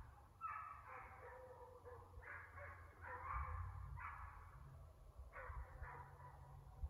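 Hounds baying on a deer chase, a faint run of about eight calls coming every half second to a second and a half.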